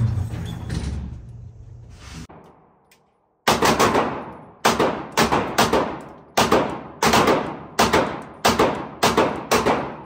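Pistol shots on an indoor range, each with a ringing echo. A loud report dies away over the first two seconds, then after a short gap about ten shots follow in uneven strings over six seconds.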